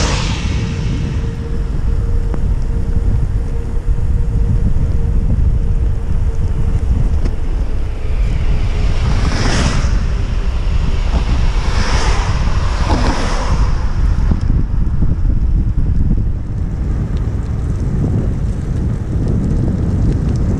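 Loud, steady wind buffeting the microphone of a camera on a moving bicycle, a constant low rumble. Passing cars rush by on the wet road with tyre hiss several times, loudest about ten to thirteen seconds in.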